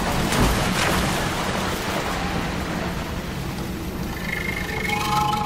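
Steady rushing noise of street traffic, with a brief pitched tone near the end.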